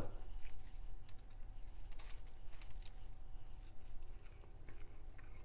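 Faint, scattered light taps and scrapes as a small ceramic bowl is handled in rubber-gloved hands and a wet mustard marinade is poured and scraped out of it onto a raw lamb shoulder.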